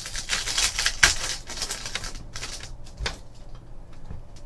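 Trading cards being slid and flicked through the hands one after another: a quick run of dry, papery rubs and snaps, thickest in the first second, with a couple of sharper clicks later.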